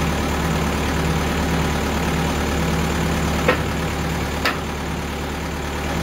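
TimberKing 2000 bandsaw sawmill's engine idling steadily with no cut under way, with two sharp knocks about a second apart midway.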